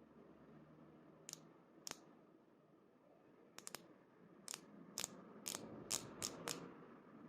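About a dozen sharp, short clicks or taps, sparse at first and coming every half second or so in the second half, over a faint low hum.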